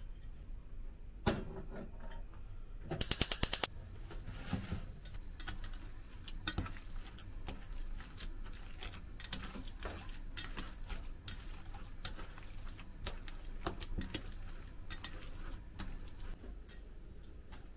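A hand kneading and squeezing raw minced chicken in a stainless-steel bowl: soft wet squishing with many small irregular ticks against the metal. About a second in there is a single sharp clack, and about three seconds in a fast rattle of clicks that lasts under a second.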